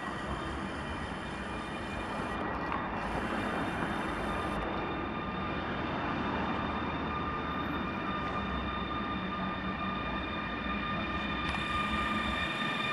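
Electric trains running through a station: a steady rail rumble with a thin high electric whine. The rumble and whine grow louder near the end as a PKP Intercity EU160 electric locomotive approaches.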